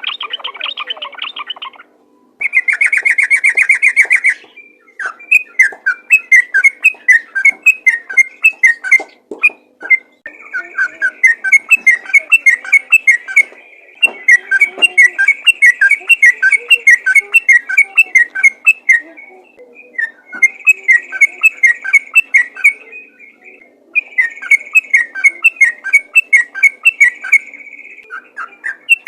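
Yellow-vented bulbul (trucukan) singing in fast, continuous runs of short chirping notes, several a second, in long phrases with brief pauses. A harsher, buzzier call fills the first few seconds.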